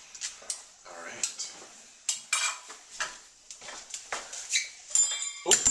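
Metal spatula scraping and clicking against a glass baking dish and plates as pieces of baked phyllo pie are lifted out and served, ending in a ringing clink near the end.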